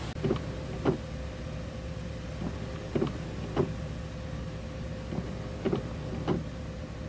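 Windshield wipers sweeping across a rain-wet windshield inside a vehicle, knocking twice about half a second apart at each sweep, three times, over a steady cabin hum.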